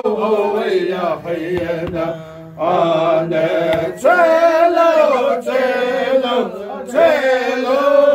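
Men singing a Navajo shoe game (Késhjéé') song, a chant of vocables in repeated phrases, each new phrase starting with a rising held note.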